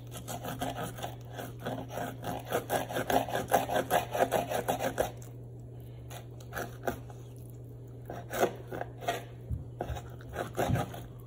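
A knife scraping and rasping against a fish on a wooden cutting board: quick strokes, several a second, for about five seconds, then a few scattered scrapes.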